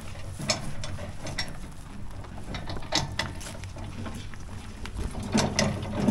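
Repeated metallic clanks and clicks, loudest and most frequent near the end, over a low steady engine idle.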